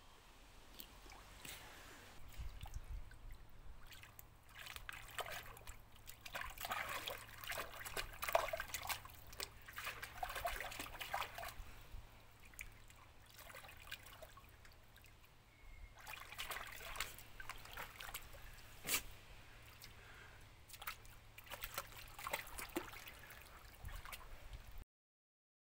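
Water splashing and sloshing in a dog paddling pool as a Siberian husky paws and wades through it, in two uneven bouts with a quieter spell between.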